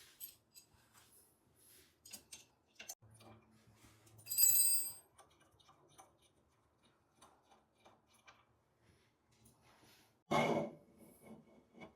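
Scattered light clicks and knocks of metal parts being handled while the legs of an electric pottery wheel are adjusted, with a brief high metallic ring about four seconds in and a louder short scrape near the end.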